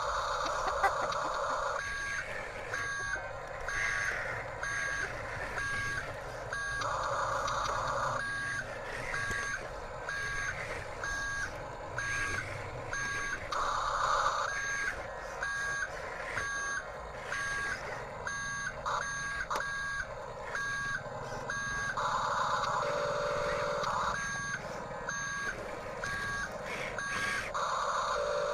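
Electronic reversing-beep sound effect from a Huina radio-controlled toy construction vehicle: a two-tone beep repeating about every 0.7 s. It is broken now and then by louder, buzzier stretches of electronic sound.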